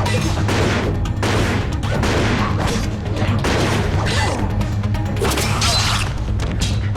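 Action-scene soundtrack: a dark music score with a steady low drone under a stream of crashes, booms and impact hits from a fight.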